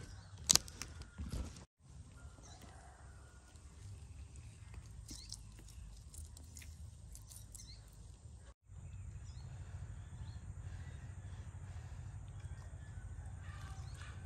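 Outdoor background: a steady low rumble with a few faint bird chirps. In the first second or two, a metal spoon clicks and scrapes against a stuffed pepper.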